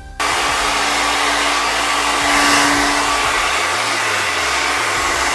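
Handheld hair dryer running steadily, a constant hum under the rush of its air. It cuts in abruptly just after the start.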